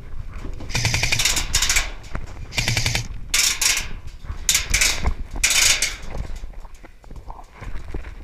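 Airsoft electric rifle firing several bursts on full auto, a rapid rattle of shots. The first burst lasts about a second and the shorter ones follow over the next few seconds.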